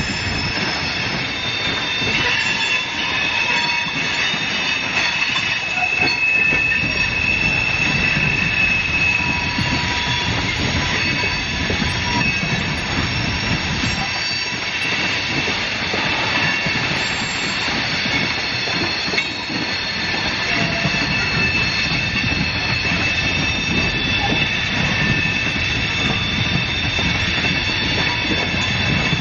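Coal hopper cars of a CSX coal train rolling past with a steady rumble, over which the steel wheels give a steady high squeal.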